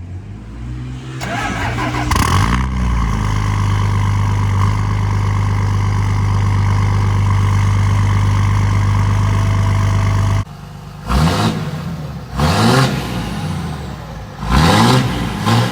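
Third-gen Cummins diesel truck engine running just after a cold start in 19-degree cold, on new injectors. It revs briefly about two seconds in, then holds a steady, loud idle that cuts off abruptly. Several short revs follow, each rising and falling.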